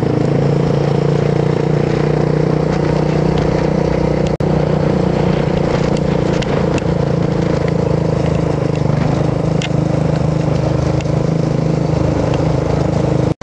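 Dirt bike engine running at a steady cruise, with wind rushing over the microphone.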